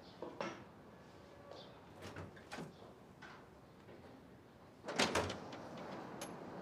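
A few light knocks from hardback books being handled, then a louder clatter of several quick knocks about five seconds in.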